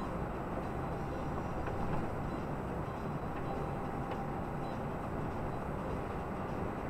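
Steady low rumble of road and engine noise from a vehicle cruising at highway speed, heard from inside the cab.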